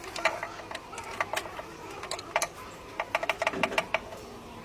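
Irregular sharp clicks and taps from hand tools at work, with a quick run of about ten clicks around three seconds in.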